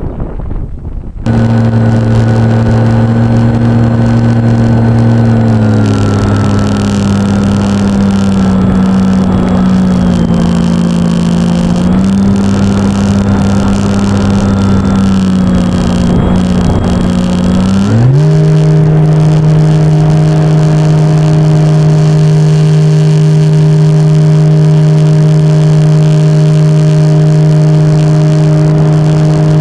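Wind buffeting the microphone for about a second, then a loud, steady motor hum with a propeller tone, likely from a radio-controlled model plane's electric motor. Its pitch drops a little about six seconds in, rises sharply about eighteen seconds in, and then holds steady.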